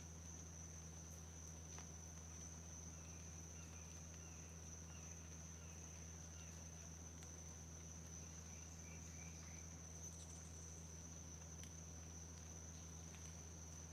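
Faint, steady high-pitched insect trill with a low steady hum underneath.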